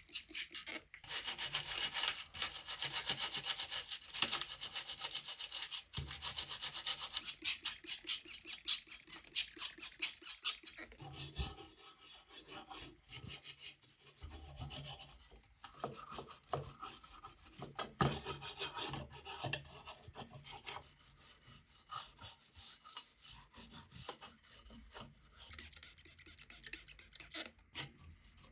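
A part being rubbed down by hand in quick back-and-forth strokes with a raspy, scratchy edge. The strokes are strongest for the first ten seconds or so, then break off briefly several times and carry on more softly and unevenly.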